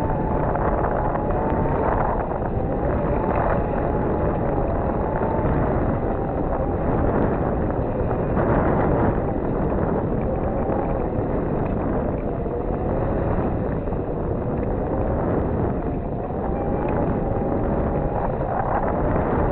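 Wind buffeting a camera microphone mounted high on a sailboat's mast: a steady rushing, with a faint drone underneath that wavers slowly in pitch.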